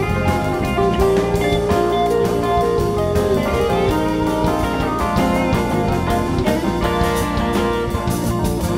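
Live rock band playing: electric guitars picking out a melody over a drum kit.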